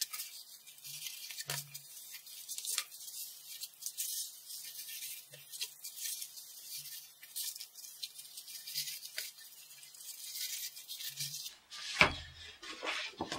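A small strip of card scraping over corrugated cardboard as glue is spread along its edges: a dry, hissy scraping with small taps. About twelve seconds in, the cardboard sheet is handled and set down with a louder rustling thump.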